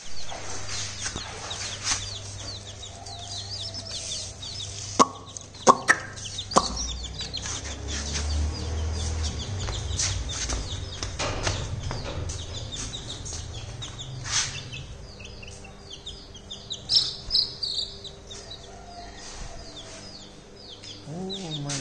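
Young chicks peeping continuously in rapid, high-pitched, falling cheeps. A few sharp knocks come about five to seven seconds in.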